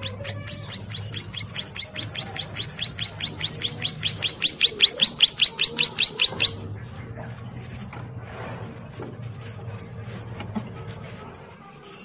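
A caged ciblek sawah (a prinia) gives a long rapid trill of sharp repeated notes, about six or seven a second, growing louder for some six seconds and then stopping abruptly. A few softer scattered chirps follow.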